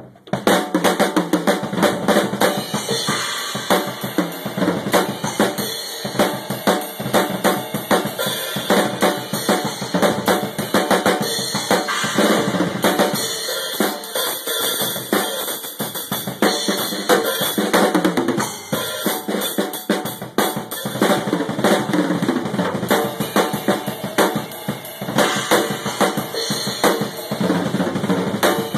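Acoustic drum kit played solo: fast, dense patterns and fills on snare, toms and bass drum with cymbals, starting abruptly just after the start.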